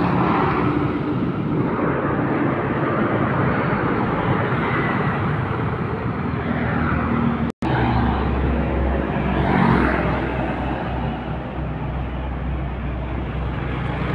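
Heavy diesel dump trucks driving past on a road: first a Mitsubishi Fuso 220PS dump truck's engine running as it passes, then, after a brief dropout at an edit about halfway through, a Hino dump truck with a deep steady engine rumble, over general traffic noise.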